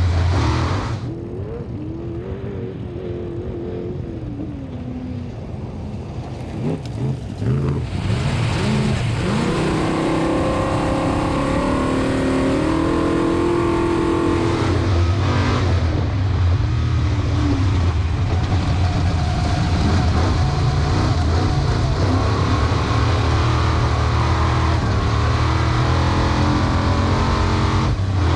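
Off-road race truck engines revving and accelerating, rising and falling in pitch. The sound is softer for the first several seconds, then gets louder about eight seconds in and stays there.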